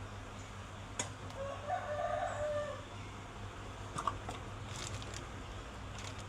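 A rooster crows once, a call of about a second and a half, over a steady low hum. A sharp click comes just before the crow, and a couple of clinks and ticks follow a few seconds later.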